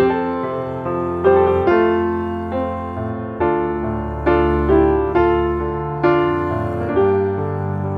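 Slow, gentle piano music, with notes or chords struck about once a second and each ringing out and fading.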